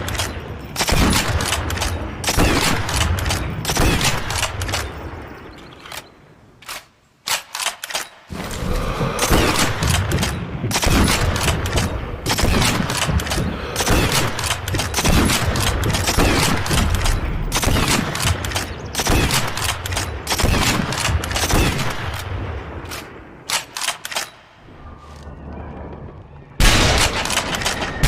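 Sustained gunfire: many shots fired in quick, overlapping succession. It breaks off briefly about six seconds in, resumes about eight seconds in, and dips again before picking up near the end.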